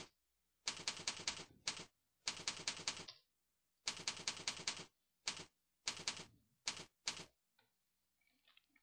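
Computer keyboard being typed on: rapid key clicks in a string of short bursts with brief pauses between, stopping near the end.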